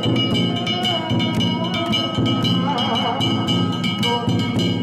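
Danjiri festival music: drum and hand gongs struck in a fast, even rhythm, with bright metallic ringing over it.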